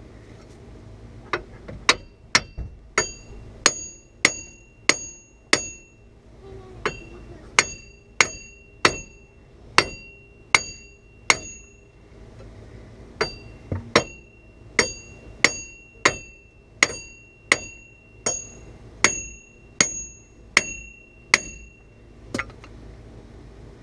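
A hammer strikes the steel wheel studs set in a 1993–97 Camaro/Trans Am front hub assembly about one and a half times a second, in three runs with short pauses between them. Each blow leaves a short metallic ring. The blows are driving the seized hub off the spindle.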